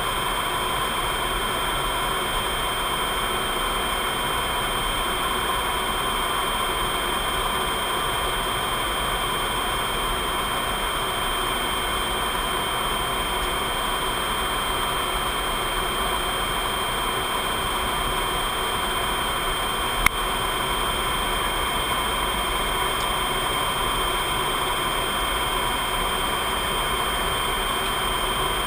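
Steady jet aircraft cockpit noise in cruise: a constant rush of engine and airflow heard inside the canopy, with several steady high-pitched whines over it. A single sharp click about twenty seconds in.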